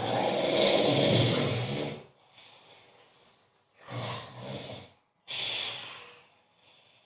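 A man snoring heavily in his sleep: one long, loud, rough snore, then a quieter breath, a shorter snore about four seconds in, and a breath out about a second later.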